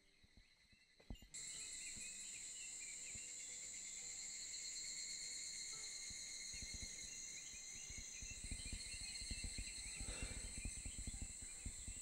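Steady, high-pitched chorus of insects shrilling, starting suddenly about a second in, with soft low thumps from about halfway on.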